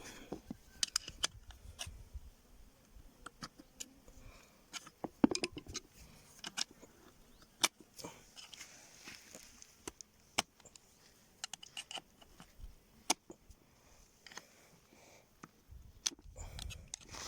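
Irregular sharp metallic clicks and clinks of tools and parts being handled while the piston is worked out of a Lada Granta steering rack.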